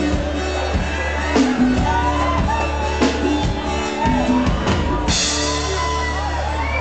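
Live sertanejo band playing the instrumental close of a song, with drum kit hits over a steady bass, and audience shouts and whoops over the music.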